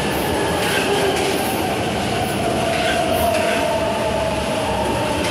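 São Paulo Metro Line 3 train G16 running past close by along the platform: a steady, loud rush and rumble of wheels on rail, with a faint thin whine rising out of it after the middle.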